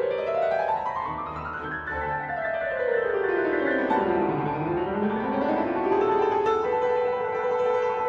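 Background piano music: fast runs of notes sweep up and down the keyboard, then settle into held notes near the end.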